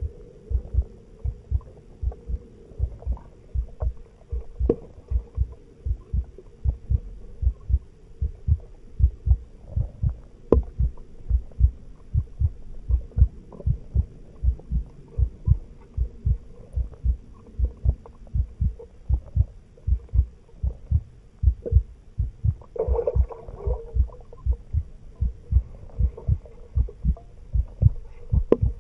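A low, regular thumping at about two to three beats a second, over a faint steady hum.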